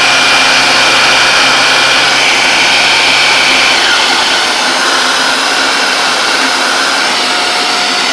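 Shark Rotator Powered Lift-Away canister vacuum running steadily and loudly with a motorized floor powerhead attached. About four seconds in, a high whine and a low hum drop away while the main suction noise carries on.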